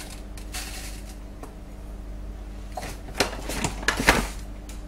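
Paper bag of sugar crinkling and rustling as sugar is poured from it into a bowl, in short bursts, busiest about three to four seconds in.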